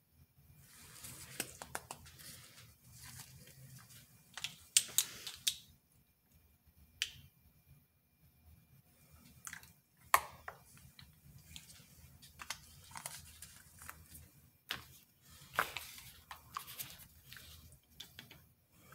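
Handling noises from work at a soap-making table: soft rustling from gloved hands and a plastic-lined mold, broken by scattered sharp clicks and taps, a few of them loud and sudden.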